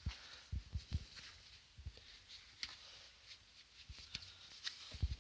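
Faint handling sounds from work on a dismantled car steering rack: scattered light clicks and a few low knocks as parts are taken out.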